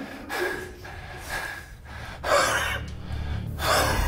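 A man's heavy, pained breathing: about four loud, ragged gasps and breaths, one after another.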